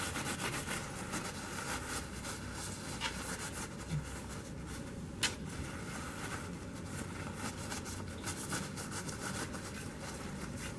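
Paper towel dampened with alcohol rubbing and rustling against the steel of a small H&R Model 732 revolver as it is wiped down, with one sharp click about five seconds in.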